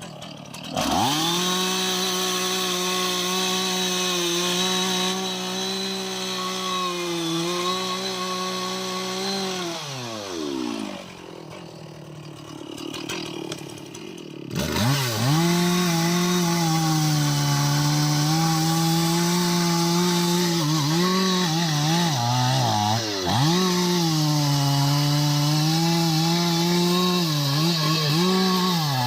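Chainsaw cutting jackfruit wood: the engine revs up to full throttle about a second in and holds, falls back to idle around ten seconds in, then revs up again a few seconds later and keeps cutting, its pitch dipping now and then.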